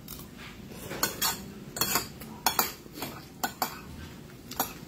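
Metal spoon and fork clinking against a plate while eating: irregular sharp clinks, often two in quick succession, about every second.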